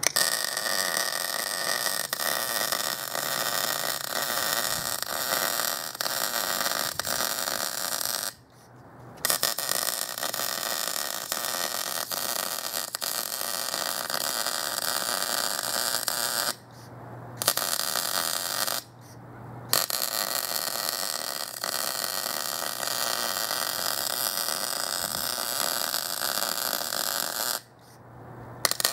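Electric arc welding: the arc sizzling steadily, stopping four times for about a second and striking up again each time.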